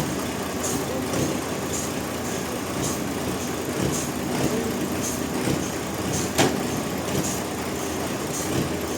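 Engine-driven machinery running steadily, with a faint regular ticking. There is a single sharp knock about six and a half seconds in.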